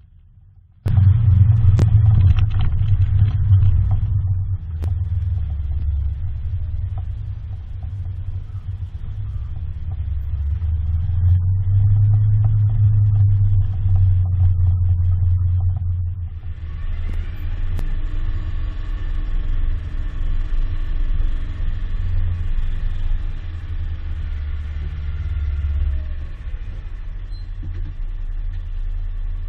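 Vehicle engine running with a loud low rumble that starts abruptly about a second in. About halfway through it settles into a steadier engine note with a clear pitch.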